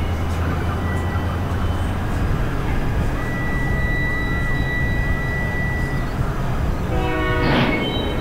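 Rail hump yard at work: a steady low rumble with a long, high, steady squeal of freight car wheels gripped by the retarders, and a locomotive horn chord sounding near the end.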